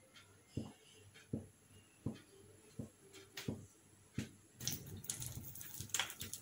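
Cooking oil heating in a kadai on a gas burner, faint. A soft tick comes about every 0.7 s, and about two-thirds through a faint crackling sizzle with scattered clicks sets in as the oil gets hot.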